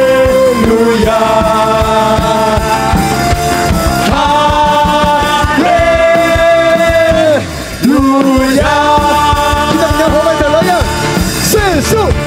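Praise and worship song: voices singing long held notes over a full band.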